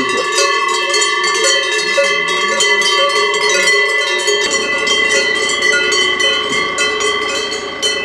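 Many cowbells on a herd of cows walking along a road, clanging irregularly with several bells ringing at different pitches at once. A low rumble joins about halfway through.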